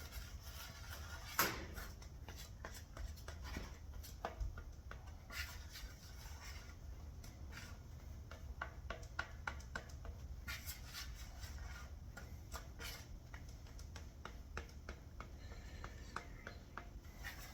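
Spatula working body filler (bog) and hardener together on a mixing board: faint, irregular scrapes and taps, with a couple of sharper knocks.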